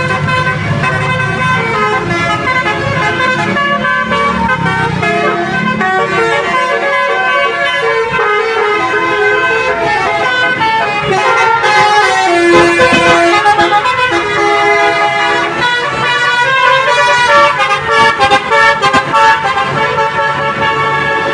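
Bus's multi-tone 'telolet' (basuri) horn playing a quick tune of stepped notes, with a low engine hum underneath for the first few seconds.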